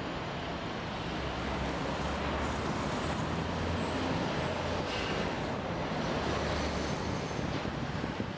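Road traffic on a city street: a steady wash of passing vehicles with a low engine rumble that swells a little in the middle.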